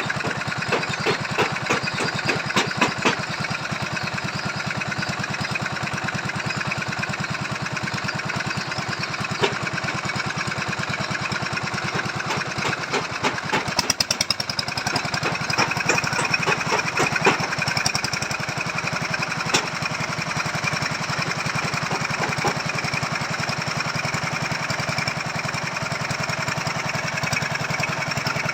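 Small engine of a machine-driven earth auger boring a foundation hole, running steadily, with irregular sharp knocks now and then.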